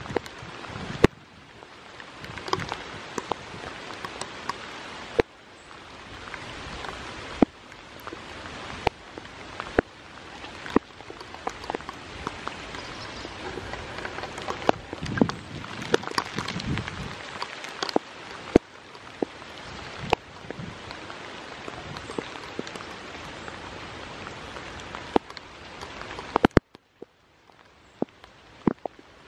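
Steady rain falling, with frequent sharp, irregular taps of drops landing close to the microphone. The rain hiss drops away suddenly for a couple of seconds near the end.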